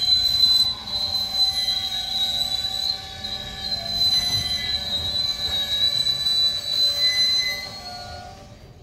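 Steel wheels of covered hopper cars on a passing grain train squealing against the rails: a loud, steady high squeal with several weaker tones over a low rumble, fading away near the end.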